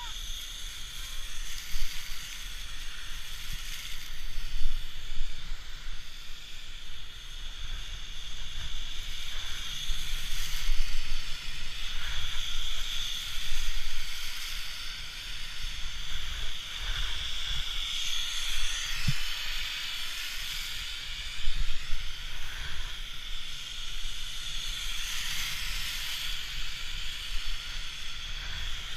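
Skis sliding and scraping over groomed snow, with wind rumbling on the camera microphone and the steady hiss of snowmaking guns spraying across the run. The noise swells several times as the skier turns.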